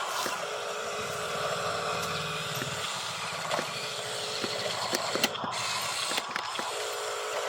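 Small electric motors of an RC construction toy whirring, with a low buzz that stops about three seconds in and scattered plastic clicks and knocks.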